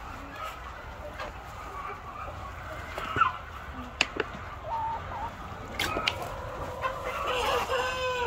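Laying hens clucking, with a few sharp clicks in the middle and a longer drawn-out chicken call, falling in pitch, near the end.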